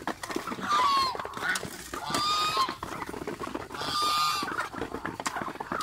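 Domestic goose honking three times, each call about half a second long, over the light tapping of ducks and chickens pecking at rice.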